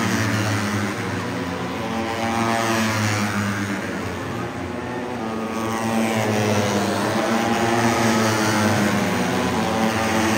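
Moto3 racing motorcycles, 250 cc single-cylinder four-strokes, passing on the circuit. Their engine notes sweep down in pitch as they go by, once in the first half and again later, over a steady engine drone.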